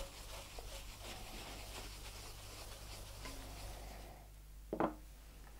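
Faint cloth rubbing over a waxed, French-polished wooden tabletop as the furniture wax is buffed off, the strokes stopping about four seconds in. One brief short sound near the end.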